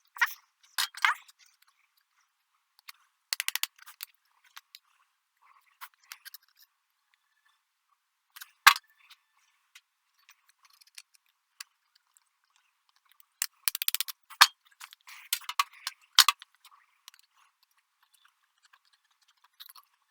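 Scattered light metallic clicks and rattles of sheet metal and hand tools being handled, with one sharp clink near the middle and a busier run of rattling a few seconds before the end.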